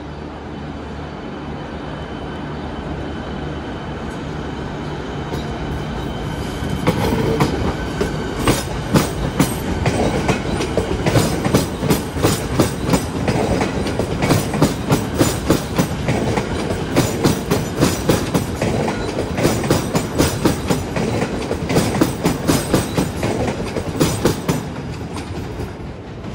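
Electric suburban train passing close by. A rumble builds over the first several seconds, then comes rapid, uneven clacking of the wheels over rail joints and points as the carriages go past.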